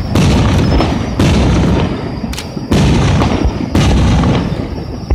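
Aerial firework shells bursting: four loud booms about a second apart, each trailing off in a long rumble.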